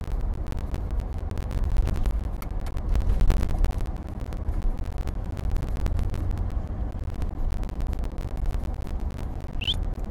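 Steady low rumble of a moving car heard from inside the cabin: road and engine noise. A brief high squeak near the end.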